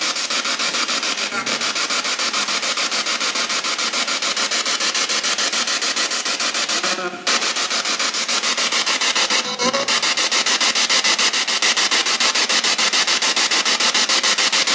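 Radio static from a spirit box, a radio sweeping rapidly through stations, played loudly through a JBL portable speaker. The hiss is chopped into quick, even pulses, and brief snatches of broadcast voice break through about seven seconds in and again about two and a half seconds later. The investigators take one snatch for the word "tak" (yes).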